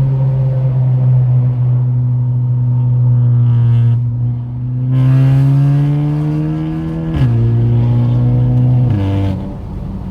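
Ford Escape under way, heard as a steady low drone with a pitched whine over it. The whine rises gradually, then drops suddenly about seven seconds in and again near nine seconds. This is the noise the car is being checked for.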